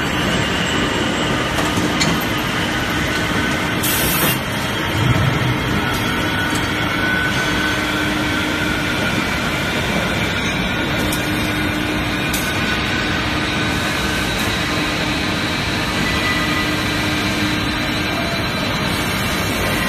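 Steady machinery noise of an automated forging line running, with motors and drives humming and a few faint steady tones. A short hiss comes about four seconds in, followed about a second later by a low thump.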